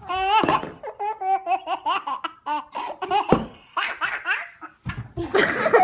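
A toddler laughing hard, in a run of short pitched ha-ha bursts, with a louder burst near the end.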